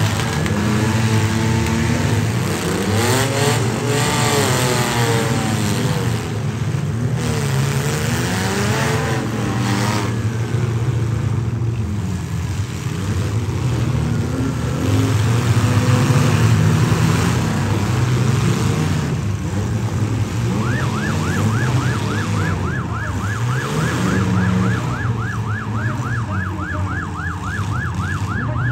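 Demolition-derby trucks and SUVs running and revving, with a few crashes. About two-thirds of the way through, a siren starts a fast repeating yelp, about three or four rises a second. The siren is the signal to stop the heat.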